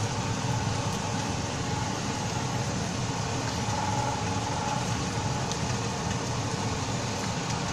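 Steady noise of chilli paste cooking in a pan on a gas burner turned up high, with a low rumble and a faint hum running through it.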